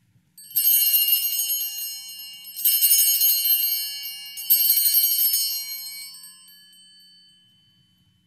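Altar bells rung three times as the chalice is elevated at the consecration, each ring a jangle of many high bell tones, the last dying away slowly.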